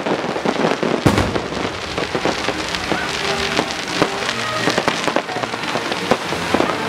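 Fireworks crackling: a dense, continuous patter of many small pops and sizzles from the shells and fountains, with a sharper bang about a second in.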